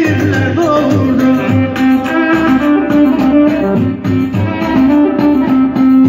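Live dance music from a Korg Pa4X arranger keyboard: a melody over a steady beat.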